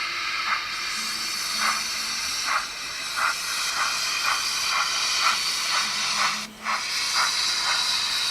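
Sound decoder of a model SNCF 231 H steam locomotive playing a steady steam hiss with exhaust chuffs. The chuffs come quicker as the locomotive gets under way, from about one a second to about two a second, as it starts to move off.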